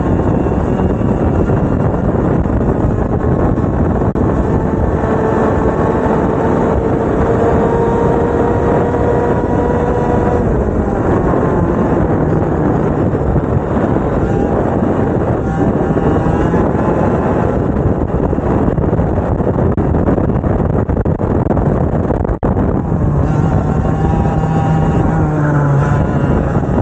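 Two-stroke racing kart engines running hard under race conditions, a continuous loud engine din. About a quarter of the way in, one engine's note climbs slowly and steadily for several seconds as it accelerates.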